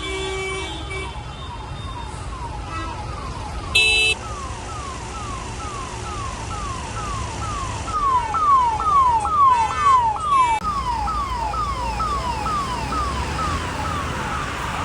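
Ambulance siren sounding in a fast repeating falling sweep, about three a second, growing louder partway through, over the low rumble of traffic. A short, loud vehicle horn honk sounds about four seconds in.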